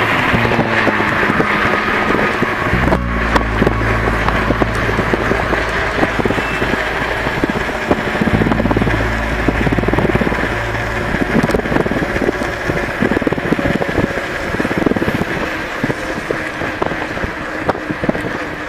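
Street traffic heard from a moving bicycle: passing cars, tyre and road noise, and a low rumble that changes abruptly about three and eight seconds in.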